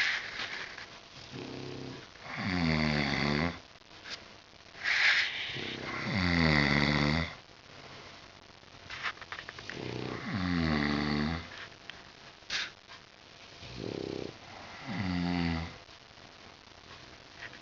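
Sleeping pets snoring: long snores about every four seconds, each sliding down in pitch, with softer, shorter snores and a brief sharp snort in between.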